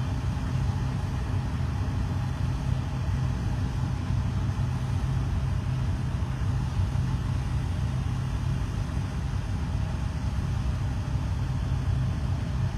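Farm tractor engines running steadily, a constant low drone that does not rise or fall.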